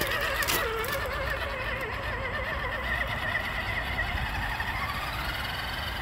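Electric motor and drivetrain of an Axial SCX10 II RC crawler whining as it drives, the pitch wavering with the throttle and climbing near the end.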